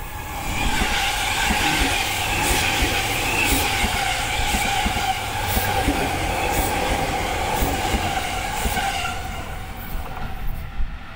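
Seibu 001 series Laview limited express train passing close at speed: a loud steady rush of wheels on rail with a steady whine, and regular clacks about once a second. It fades away over the last two seconds as the train recedes.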